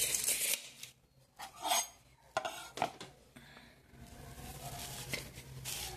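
Handling noise from metal objects: a scraping rustle at the start, a few short clicks and scrapes in the next three seconds, and another scrape near the end, over a faint low hum.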